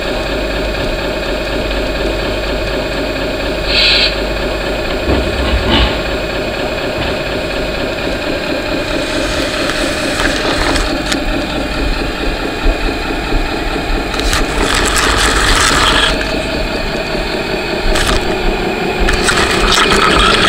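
Engine sound of a radio-controlled scale model Scania R620 truck, its sound module running a steady pulsing diesel engine note through a small speaker as the truck starts off and drives slowly forward. A few short noisy bursts cut in, the longest about fifteen seconds in.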